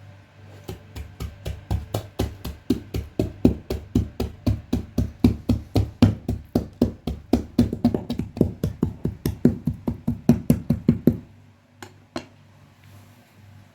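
A cleaver chopping chicken gizzards on a board with fast, even blows, about four to five a second, stopping suddenly with one last knock about a second later. Background music plays quietly underneath.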